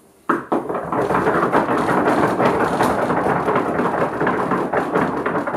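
Audience applause: a dense patter of many overlapping claps or knocks that starts suddenly about a third of a second in and keeps on steadily.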